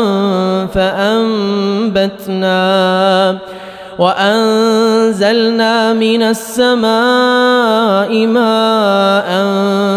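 A man's voice reciting the Quran in melodic tajwid style, holding long, ornamented notes that glide up and down. There is a short breath pause about three and a half seconds in.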